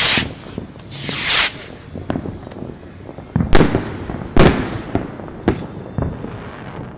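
Fireworks going off: two long hisses in the first second and a half, then two loud bangs about three and a half and four and a half seconds in, followed by scattered smaller cracks and pops.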